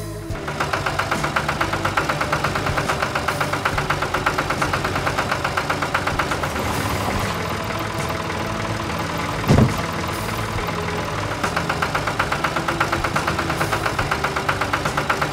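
Cartoon tractor engine sound effect, chugging with a fast, even beat. A single short thud comes about nine and a half seconds in.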